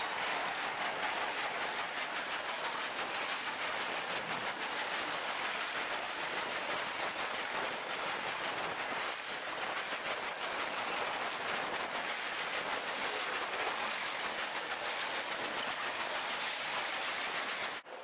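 Intermodal freight train cars rolling past, sped up several times: a steady, dense rush of fast wheel clatter that sounds almost like rain. It breaks off abruptly near the end.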